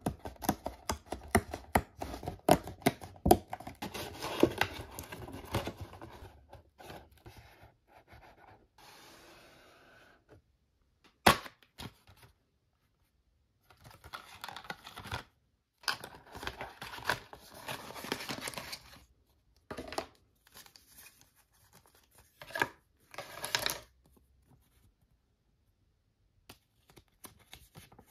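Cardboard and paper being handled and opened: the folded top of a Happy Meal carton pulled apart with tearing, crinkling and scraping, then a small cardboard toy box opened and a paper instruction leaflet unfolded. The rustling is busiest over the first several seconds, then comes in short bursts with silent pauses between.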